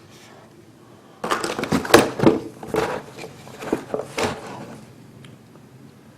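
Rifle being handled: an irregular run of clicks, knocks and rattles of its metal and polymer parts for about three seconds, then quiet handling.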